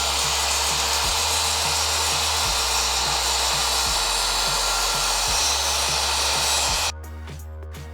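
A power tool's motor runs steadily with a loud rushing whir, starting abruptly and cutting off about seven seconds in, over background music with a regular beat.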